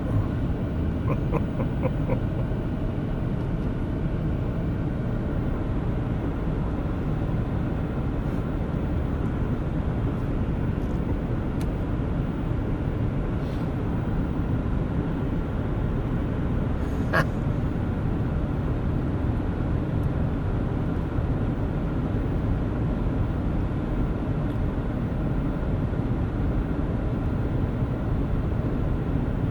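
Steady low rumble of a vehicle running, with a few short blips early on and a sharp click about two-thirds of the way through.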